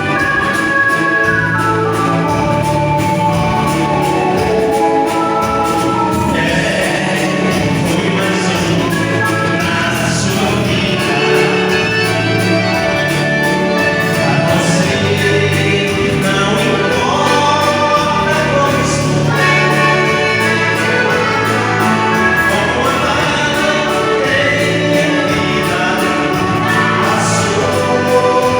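Live dance-band music: a waltz, with long held melody notes over a steady bass line.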